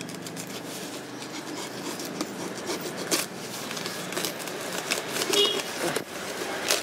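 Foam-wrapped parcel being cut and pulled open: rubbing, scratching and crinkling of the foam sheet and packing tape, with a few sharp clicks, the loudest near the end.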